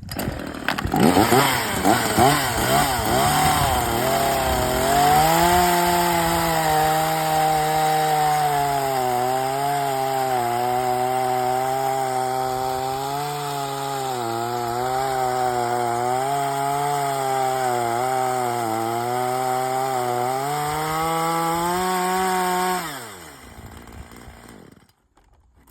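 Petrol chainsaw revved up and down a few times, then held at full throttle for about twenty seconds while cutting through the leftover end of a wooden post, its pitch dipping slightly now and then under load. Near the end the throttle is released and the engine winds down.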